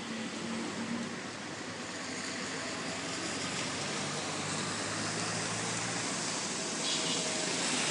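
Vehicle traffic on a rain-wet road: steady tyre hiss with a faint engine hum, growing gradually louder as a vehicle approaches.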